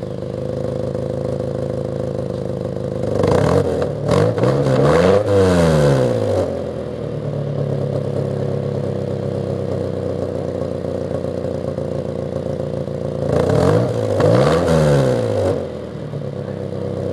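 1989 Nissan 240SX's 2.4-litre four-cylinder engine idling through an Apexi aftermarket exhaust, revved up and let fall back to idle twice, about three seconds in and again near the end.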